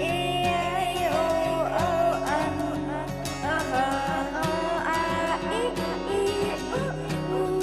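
Background music: a melody over a plucked-string accompaniment with a steady beat.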